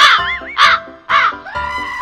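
Background music with three loud, short caw-like calls about half a second apart, followed by a long held note.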